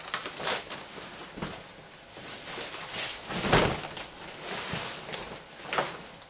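Deflated vinyl inflatable flamingo being unfolded and spread out by hand: the thin plastic rustles and crinkles in irregular handfuls, loudest about three and a half seconds in.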